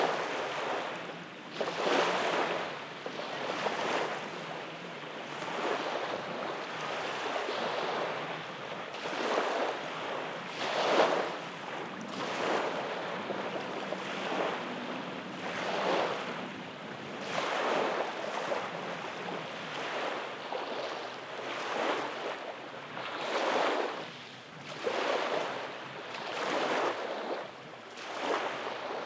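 Small waves breaking and washing up a sandy beach, a swelling hiss about every two seconds.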